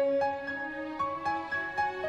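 Soft instrumental background music: a melody of separate held notes over a steady lower note.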